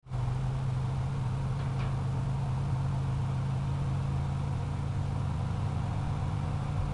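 Engine of the heavy machine pulling down a transmission tower, running steadily with a low, even hum.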